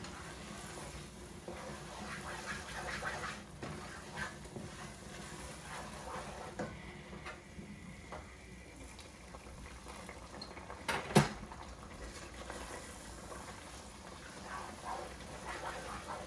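Thick onion and tomato-paste stew base bubbling and crackling in a pot on the stove while a wooden spoon stirs it, with one sharp knock about eleven seconds in.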